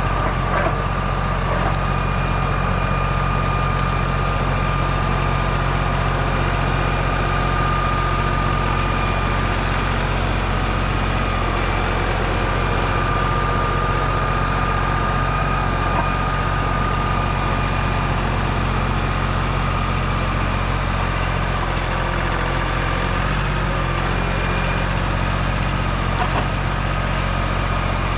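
A motor-vehicle engine running steadily at a constant speed, with a steady high-pitched whine over it.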